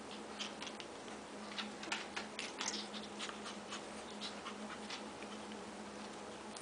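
Black Shih Tzu puppies shuffling about on a blanket: irregular soft scratches and rustles from paws and fur, busiest in the first five seconds.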